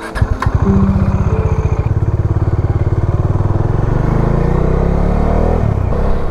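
Bajaj Dominar 400's single-cylinder engine running under way, its firing pulses plain; it revs up, rising in pitch, then drops suddenly about five and a half seconds in, as at a gear change.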